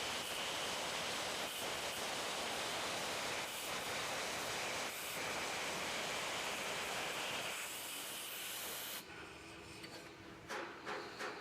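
Electric arc on a steel pipe hissing and crackling steadily, cutting off about nine seconds in; a few light clicks and knocks follow.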